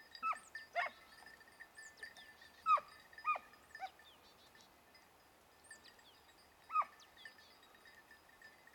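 Hare-hunting hounds giving tongue in the scrub: a scattered string of short, high yelps, each falling in pitch, heard as the dogs work a hare's scent.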